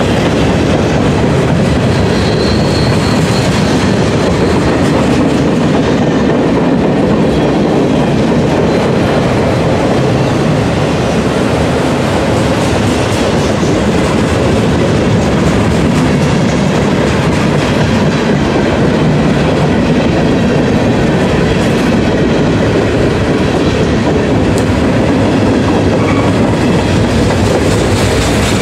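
Freight cars of a mixed manifest train (boxcars, gondolas and covered hoppers) rolling past steadily, their steel wheels clacking over the rails.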